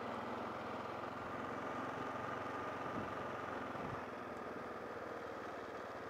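Kawasaki KLR650's single-cylinder four-stroke engine running steadily.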